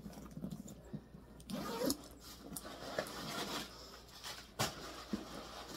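Coach Cara leather satchel being turned over and handled: rustling of the leather and strap, with a few sharp clicks from its metal hardware.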